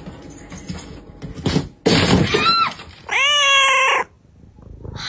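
Domestic cat meowing loudly: a short, rough cry about two seconds in, then one long, drawn-out meow lasting about a second, its pitch rising and then falling.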